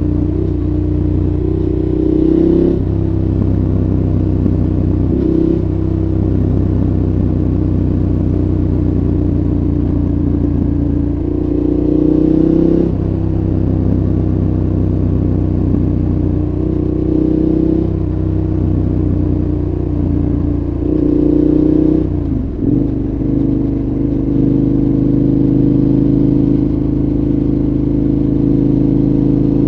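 2014 KTM 1190 Adventure's V-twin through a Giannelli exhaust with dB killer, heard from onboard. The engine runs at fairly steady revs with short throttle openings every few seconds, and about three-quarters of the way through the revs dip sharply and come back up.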